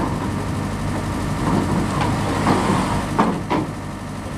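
Heavy diesel engine running steadily at low revs, with a couple of short knocks a little after three seconds.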